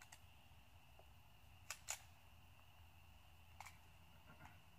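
Near silence with a few faint, sharp clicks: two close together just under two seconds in, and another about three and a half seconds in.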